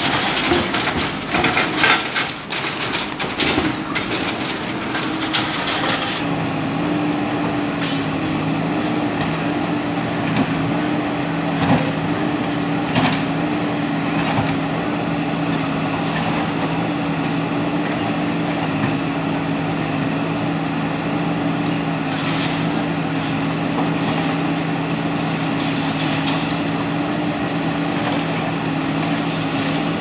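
JCB backhoe loader demolishing concrete: for the first few seconds, repeated crashes and crunching of concrete rubble being broken and dragged. From about six seconds in, the diesel engine runs at a steady, even pitch, with a few scattered knocks from the digging arm and debris.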